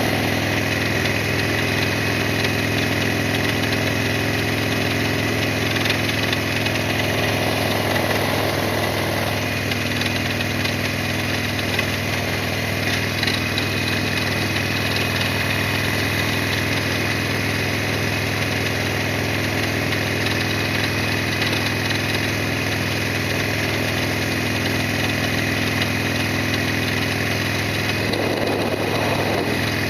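Harley-Davidson Sportster XL1200R's air-cooled V-twin engine running at a steady, unchanging pitch.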